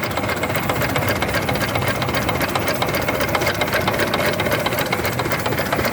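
Chinese water-cooled diesel engine driving a compressor, running steadily with a fast, even diesel clatter.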